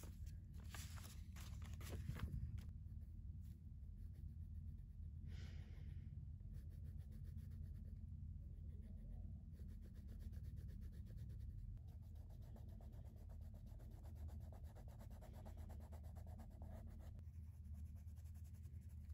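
Paper journal pages being flipped by hand, then a felt-tip marker scratching on paper as squares are coloured in, all faint over a steady low hum.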